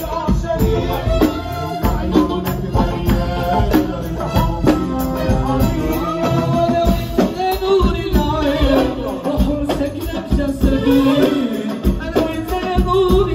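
Live Maghrebi chaabi band: a male singer into a microphone over violin, darbuka and drum kit, with fast, dense percussion driving the rhythm.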